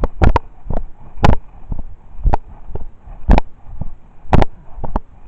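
A steady run of close, sharp knocks and thumps, about two a second with a louder one roughly every second, picked up loudly by a body-worn camera.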